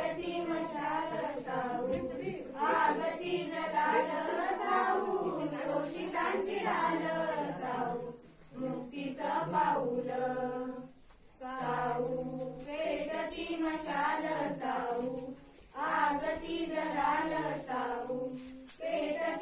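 A group of schoolchildren singing a Marathi awareness song together as a choir, in phrases with brief pauses between them.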